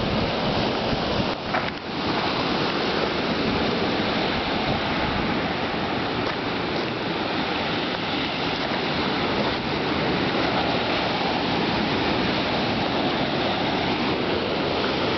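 Ocean surf breaking over lava rocks and washing up a sand beach: a steady, unbroken rush of water.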